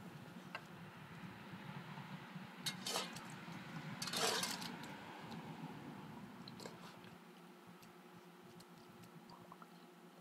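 Dog with her muzzle in her water bowl, slurping and blowing bubbles in the water, with two louder bubbling bursts about three and four seconds in.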